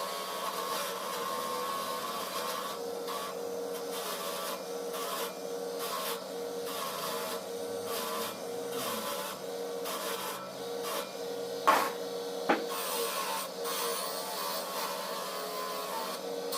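A small electric motor whirring steadily, with an irregular rubbing or scraping over it, and two sharp knocks less than a second apart about twelve seconds in.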